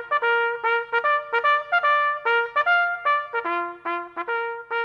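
Short brass fanfare jingle, a trumpet playing a quick run of short, clipped notes at several notes a second.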